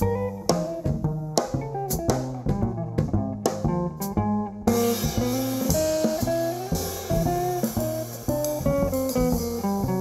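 Jazz trio playing live: hollow-body electric guitar playing a melodic line over plucked upright bass and drums. The cymbals come in with a steady wash a little before halfway.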